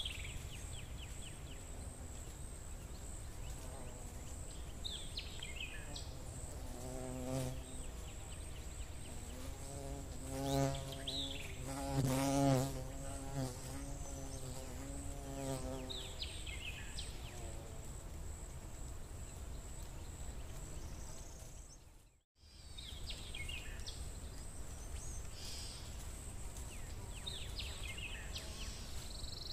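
A flying insect buzzing close by through the first half, its hum wavering up and down in pitch and loudest near the middle. Short falling bird chirps come every few seconds.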